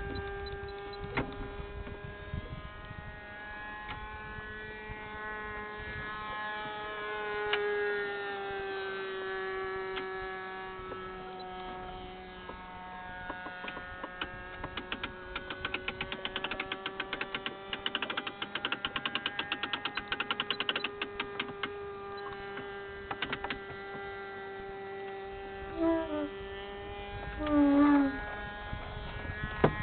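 Model airplane engine droning steadily in flight, its pitch drifting slowly as the plane flies around. Rapid ticking runs for several seconds through the middle, and two short louder gliding sounds come near the end.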